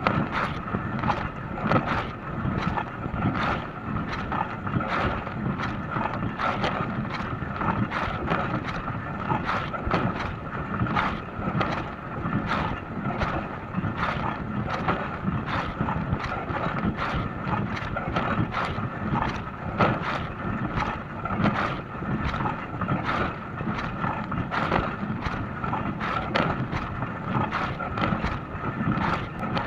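Dishwasher running a wash cycle: water spraying and splashing inside the tub in a constant wash of noise with many small irregular splashes, over a steady motor tone.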